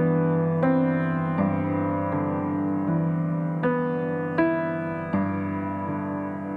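Background music: soft piano-like keyboard chords, a new one struck about every three-quarters of a second.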